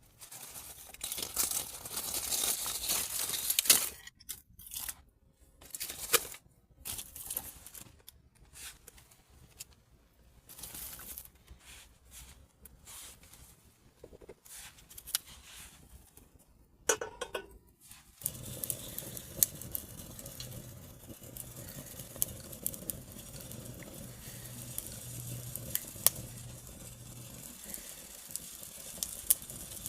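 Dry paper and tinder crumpling and tearing in short bursts, then a steady crackle with sharp ticks from a small fire burning in a tin-can hobo stove.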